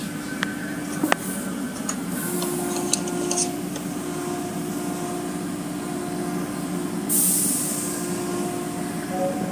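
Automatic car wash tunnel machinery running with a steady mechanical hum, with a couple of sharp clicks near the start. About seven seconds in, a sudden loud hiss of spray sets in and fades over a second or so.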